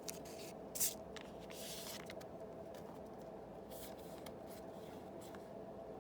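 Trading cards from an opened Yu-Gi-Oh booster pack being handled: a sharp click just under a second in, a short sliding swish, then a few faint clicks, over a steady low hum.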